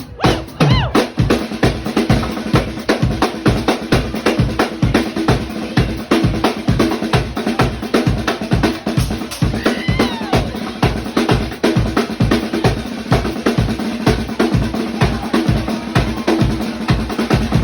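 Live drum solo on a Tama Superstar Hyperdrive kit with a Ludwig acrylic snare: a fast, unbroken run of bass drum and snare strokes.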